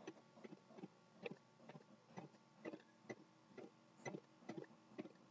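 Faint computer keyboard keystrokes, short uneven clicks about two to three a second as text is deleted and retyped.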